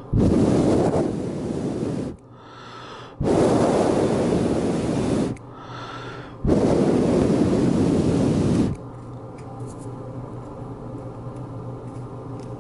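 A person blowing hard close to the microphone in three long puffs of about two seconds each, with short pauses for breath between them, to cool a hot-glue joint; faint handling clicks follow.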